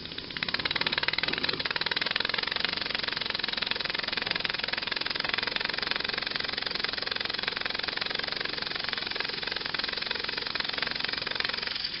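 Single-cylinder uniflow ball-valve model engine running fast, giving a rapid, even stream of exhaust beats. It stops abruptly at the end.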